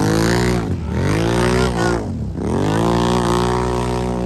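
Off-road racing machines' engines revving hard in a mud race run, with three rising surges of revs. The pitch drops sharply about a second in and again about two seconds in before climbing again.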